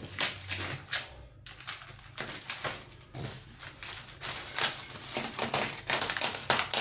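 Plastic bags crinkling and rustling with many small irregular clicks and crackles as bagged parts are worked loose from a polystyrene foam packing insert.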